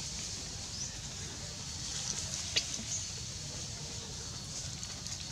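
Outdoor ambience: a steady low rumble with a high hiss, and a few faint, short, high-pitched chirps or squeaks about two and a half seconds in.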